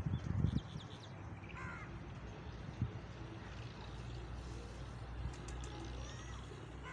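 Wind rumbling against the microphone, with a few short thumps at the start and faint bird chirps about a second and a half in and near the end.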